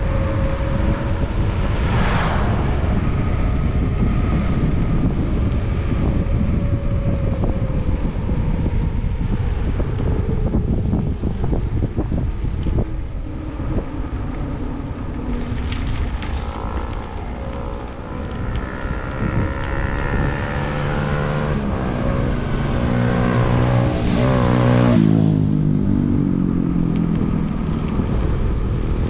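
Steady wind rush on the microphone of a bicycle-mounted camera while riding. A motor vehicle's engine grows louder from about two-thirds of the way in, peaks, and drops in pitch as it passes near the end.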